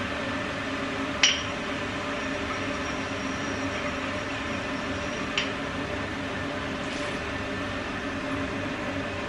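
Two sharp clinks of kitchenware handled at a counter, one about a second in and one about five seconds in, over a steady mechanical drone that is the neighbours' noise.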